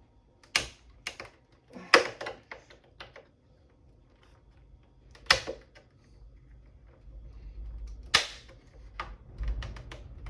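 Sharp plastic clicks and snaps as a monitor's plastic bezel and its clips are pried apart with a metal spudger: about half a dozen separate clicks, the loudest about two, five and eight seconds in. A low rumble of the case being handled comes in near the end.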